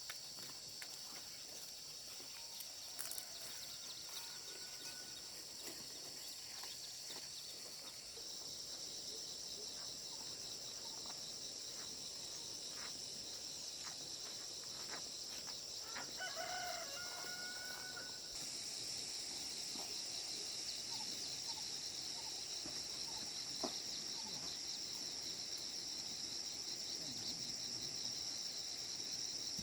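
A rooster crowing once, about halfway through, over a steady high-pitched drone of outdoor background noise with faint scattered clicks.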